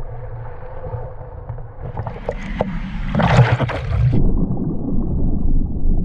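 Surf rushing and splashing close against a waterproof action camera, loudest a little past three seconds in. About four seconds in the camera goes under and the sound turns to a muffled low underwater rumble.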